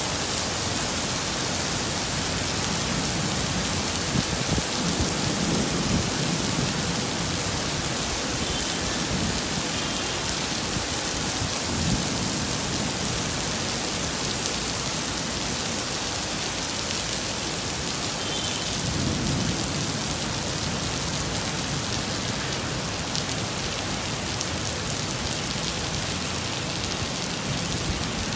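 Heavy tropical downpour hissing steadily on pavement and road. Low rolls of thunder rumble under it several times.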